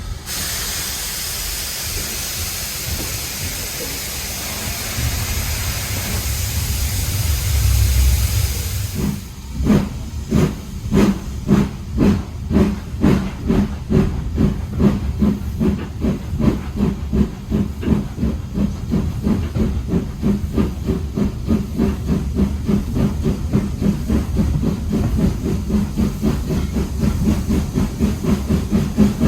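Steam locomotive starting away: a loud hiss of steam for about the first nine seconds, then exhaust chuffs that begin slowly and quicken steadily as the train gathers speed.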